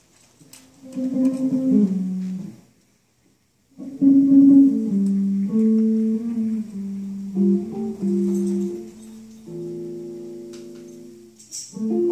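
Unaccompanied electric archtop jazz guitar playing a slow melodic line of single notes and a held chord, with a short pause about three seconds in. Near the end the drums and piano join in.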